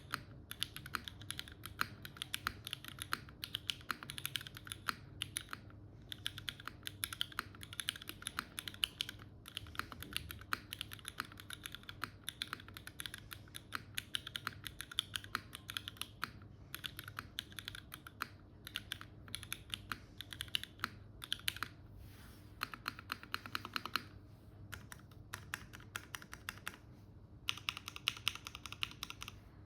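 Dune 65 mechanical keyboard with Cherry MX2A switches in an aluminium plate, top mount, being typed on in a steady stream of keystrokes, several clacks a second, with a few brief pauses.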